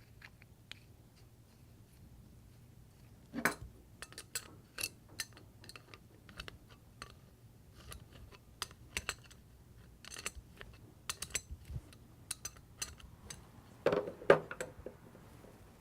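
Small metal parts of an airless spray gun clicking and tapping as the rear cap and spring assembly is fitted back on, in scattered light clicks with a louder knock about three seconds in and another near the end.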